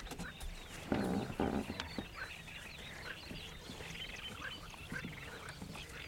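Wetland chorus of many small bird chirps and frogs croaking from the reeds, with two louder, harsh croaks about a second in.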